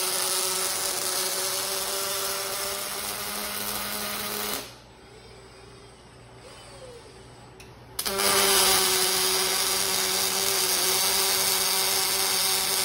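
A Lincoln Fanuc collaborative robot's MIG welding arc running steadily, cutting off about four and a half seconds in. After a quieter pause of about three seconds, with only a low hum while the arm moves to the next joint, the arc strikes again and runs steadily.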